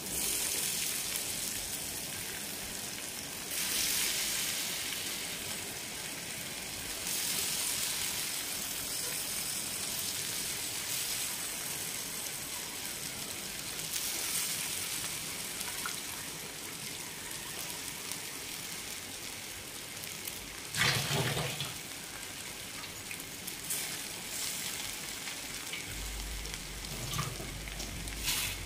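Damp, squeezed flattened rice dropped by the handful into a pan of hot oil with fried onions and chillies, sizzling; the hiss swells each time a fresh handful goes in. A short knock about two-thirds of the way through.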